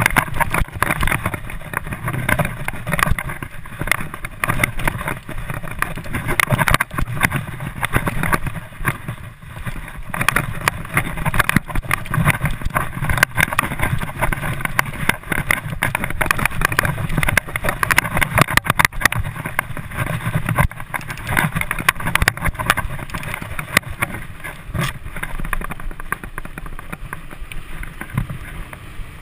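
Wind noise on the microphone and the rattle and knocks of a mountain bike riding fast over a rough dirt trail, somewhat quieter near the end.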